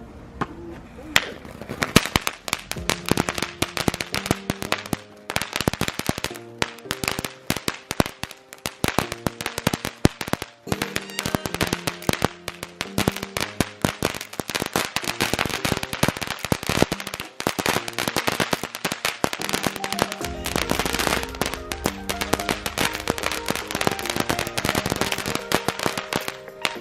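Blazing Rebel firework going off as a long, rapid string of firecracker pops that crackle almost without a break, over background music.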